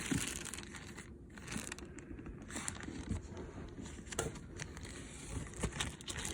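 Plastic packaging crinkling and rustling as it is handled and opened, with a few light knocks.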